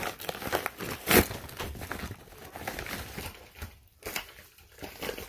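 Disposable puppy pad crinkling and rustling as the whelping dog shifts on it: a run of short crackles, the loudest about a second in, growing sparser in the second half.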